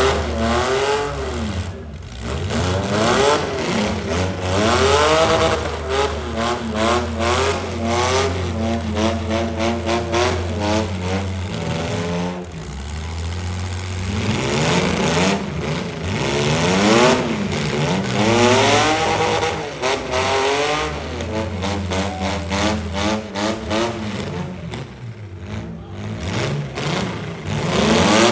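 Demolition derby car engines revving hard, their pitch rising and falling over and over, with scattered sharp bangs as cars hit each other.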